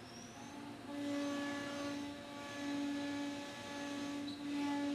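C.R. Onsrud CNC router's spindle running as it cuts into a wood panel: a steady pitched whine that swells and dips as the cutter moves. A faint high whine rises briefly at the start.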